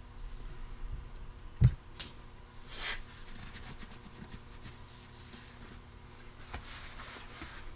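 Parts being handled on a workbench: a single dull knock about a second and a half in, as the painted leveling-box housing is set down on the bench mat, followed by light scraping and rustling of handled parts.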